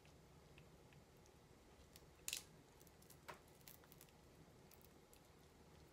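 Near silence broken by faint clicks and crackles of a raw live shrimp's shell being pulled apart in the fingers, with one sharper crackle about two seconds in and a smaller click a second later.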